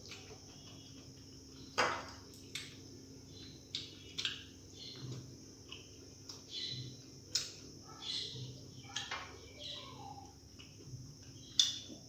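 Close-up eating sounds of a person chewing a meal of rice and curry: irregular wet mouth clicks and lip smacks, with a couple of sharper, louder clicks about two seconds in and near the end.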